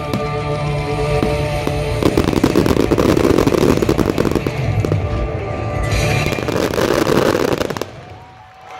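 Fireworks crackling densely over loud music playing through speakers. The crackle thickens about two seconds in, and everything fades away near the end.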